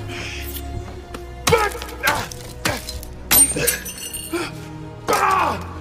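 Lake ice cracking in a film soundtrack: several short, sharp cracks whose pitch falls quickly, over steady background music.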